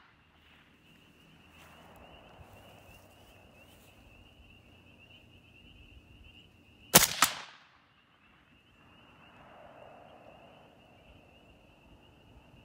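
A single suppressed rifle shot, 5.45x39 through a Dead Air Sandman K suppressor, about seven seconds in, with a fainter rumble rolling back about two seconds later.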